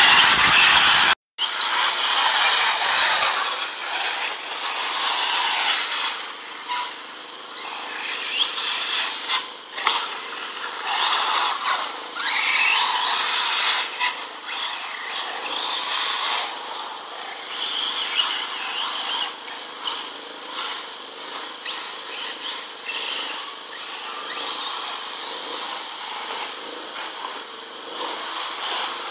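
A loud stretch cuts off suddenly about a second in. After the cut, radio-controlled off-road cars are racing round a dirt track, their small high-revving motors buzzing and whining. The sound swells and fades and rises and falls in pitch as the cars speed up, brake and pass at different distances.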